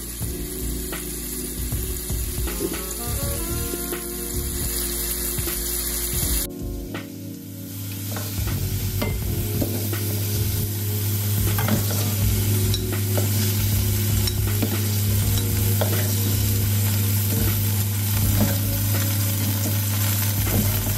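Seasoned shrimp sizzling in olive oil in a frying pan, with clicks of metal tongs on the pan as the shrimp are turned and lifted out. A steady low hum runs underneath from about a third of the way in.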